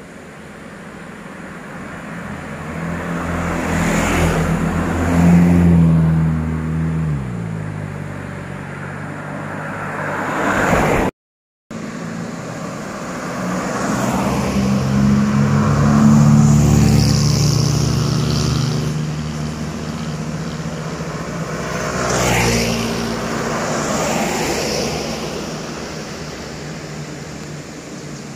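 Cars passing one after another, each engine note swelling as the car approaches and fading as it goes by. The sound cuts out briefly about eleven seconds in.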